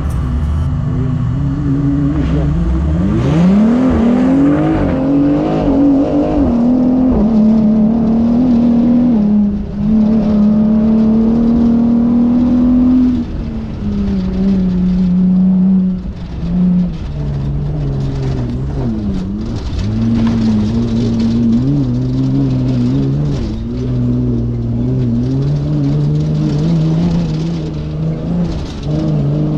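Off-road race vehicle's engine revving up steeply a few seconds in, then running hard under load. Its pitch rises and falls as the throttle changes, easing lower for a while around the middle.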